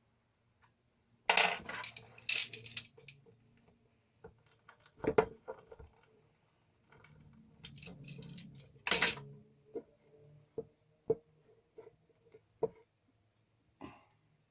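Small metal tools and parts clinking and rattling as they are handled, in short bouts about a second in, around five seconds and around nine seconds, followed by a few light ticks.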